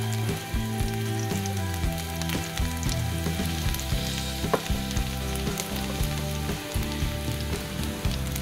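Chopped garlic sizzling in hot olive oil in a frying pan, a steady hiss dotted with small sharp crackles.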